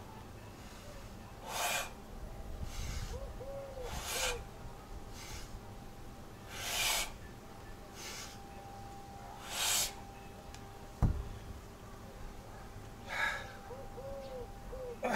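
A man breathing hard and forcefully while exercising with a kettlebell, one sharp breath every second or few. About eleven seconds in, a heavy dull thud as the kettlebell is set down on the grass.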